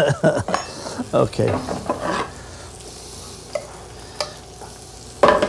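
Hot oil sizzling steadily in pans on a gas range, with a spoon clicking and scraping against a stainless sauté pan as its contents are spooned onto a plate. A brief louder clatter comes near the end.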